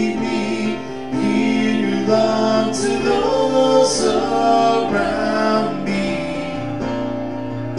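Contemporary worship song sung by a man and a woman over electric keyboard accompaniment. Near the end the voices ease off and the keyboard carries on.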